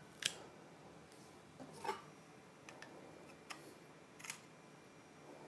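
A handful of faint clicks and light scrapes from a stainless-steel garlic press as it is squeezed and a knife scrapes the minced garlic off it.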